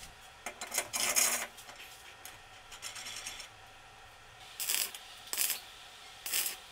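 Short rasping, scraping bursts of steel against steel from the parts of a homemade square-tube clamp being worked, several of them a second or so apart.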